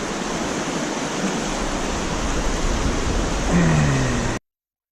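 Steady rush of a rocky trout river's flowing water, with a brief falling vocal sound just before it cuts off abruptly to silence about four and a half seconds in.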